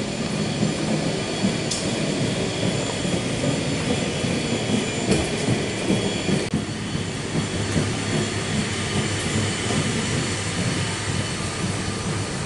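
Running noise of a moving train heard from inside the carriage: a steady rumble of wheels on track with a few clicks, the mid-range easing a little about halfway.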